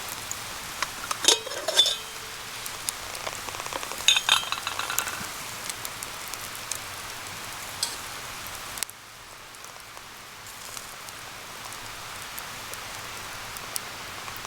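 Steady sizzling hiss of campfire cooking, with a few sharp clinks of metal utensils in the first five seconds. About nine seconds in, the hiss drops abruptly to a quieter, even hiss.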